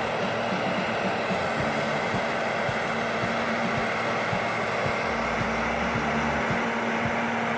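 A heavy machine's engine running steadily, with an even hum and scattered low knocks.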